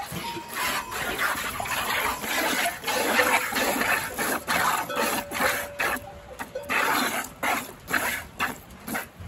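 Goat being milked by hand into a plastic bucket: squirts of milk hissing into the bucket, packed close together at first, then in separate strokes about two or three a second in the second half.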